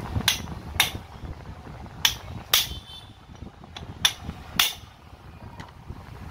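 Hand hammer striking a steel punch set against the front barrel of a 5 kg demolition hammer: six sharp metal blows in three quick pairs, with a few lighter taps between.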